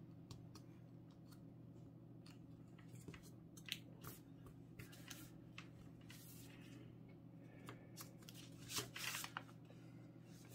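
Faint rustling and crinkling of a folded sheet of paper being creased and handled, with a few louder crinkles about four seconds in and near nine seconds in, over a low steady hum.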